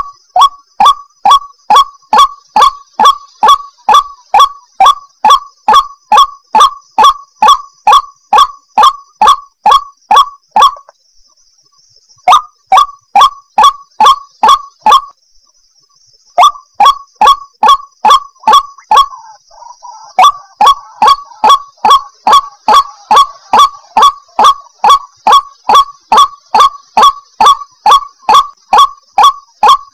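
White-breasted waterhen calling: a loud, harsh note repeated about twice a second, with two short breaks near the middle.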